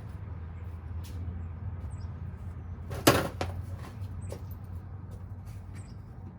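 A sharp knock about three seconds in, followed by a lighter one and a few faint clicks, over a steady low hum.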